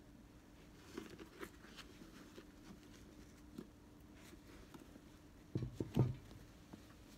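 A pair of Air Jordan 11 sneakers handled, with scattered light taps and rustles of patent leather and mesh, then two dull thumps close together near the end as the shoes are set down on a table. A faint steady hum runs underneath.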